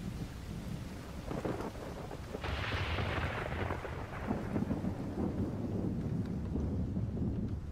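Rolling thunder: a steady low rumble, with a louder swell about two and a half seconds in that fades away over a second or so.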